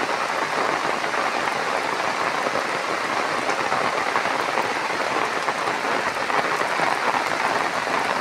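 Heavy rain pouring steadily: a dense, even hiss with many small drop ticks.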